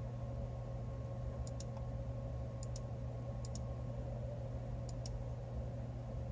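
Computer mouse button clicking four times, each click a quick press-and-release pair, over a steady low electrical hum.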